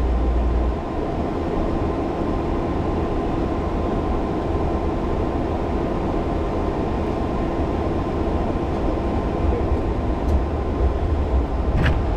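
Steady mechanical hum with a low rumble and faint steady whining tones from the cooling equipment at a Tesla Supercharger stall. A short click comes near the end.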